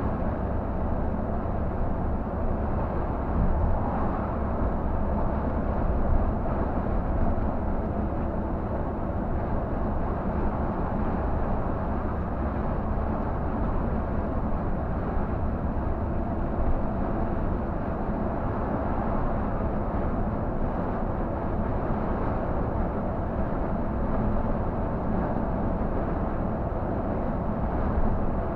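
Cab noise of a Scania K124 360 coach cruising on a highway: the steady low drone of its rear-mounted straight-six diesel engine mixed with road and tyre noise.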